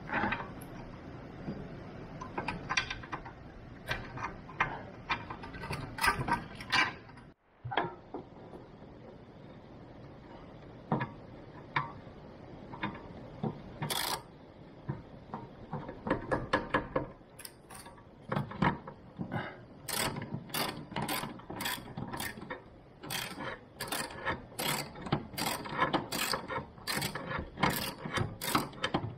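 Hand ratchet wrench on an extension and universal joint clicking as a bolt on the car's front steering knuckle is turned, in quick runs of ratchet clicks, densest in the second half.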